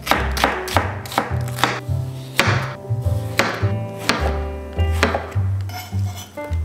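Kitchen knife chopping onion and then Korean zucchini on a cutting board: a quick, irregular run of sharp knocks of the blade on the board, thinning out near the end. Background music with low plucked bass notes runs underneath.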